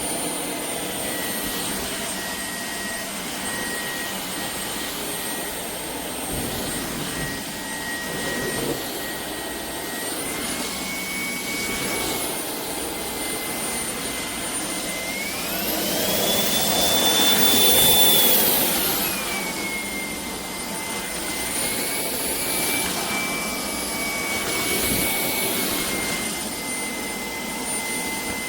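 Shark cordless stick vacuum running with a high motor whine and rushing air. About halfway through the motor speeds up sharply to a higher, louder pitch, holds for a few seconds, then drops back. Smaller steps in speed come a third of the way in and again later.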